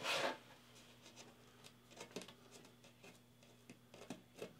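Faint scratches and small clicks of a craft knife blade scoring painter's tape on a plywood board, after a brief scuff at the start.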